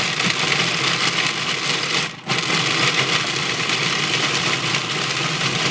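Cuisinart 14-cup food processor running on pulse, its blade chopping nuts into crumbs. It runs steadily, breaks off briefly about two seconds in, and stops near the end.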